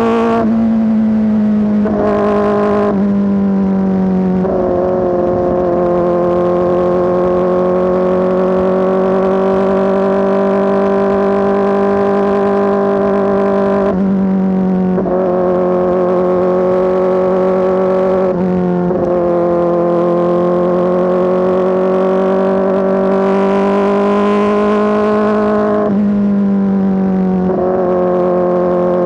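Kawasaki ZX-4RR's inline-four engine running through an SC-Project S1 exhaust, loud and held at a steady high engine speed, with a few brief jumps and dips in pitch.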